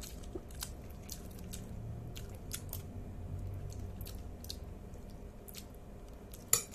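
A person chewing a mouthful of Paldo Bibimmen instant noodles close to the microphone: wet chewing with many small smacks and clicks of the mouth. Near the end a louder sharp clink of metal cutlery stands out.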